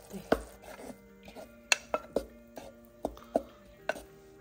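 A wooden spoon knocking against a saucepan while stirring thick tomato sauce: a string of sharp, irregular knocks over soft background music.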